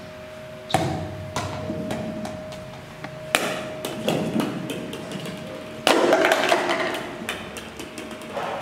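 Stacked plastic cups hit by thrown plastic balls, knocking and clattering onto a tiled floor: a sharp knock about a second in, another after about three seconds, then a longer burst of clatter as many cups tumble near the six-second mark.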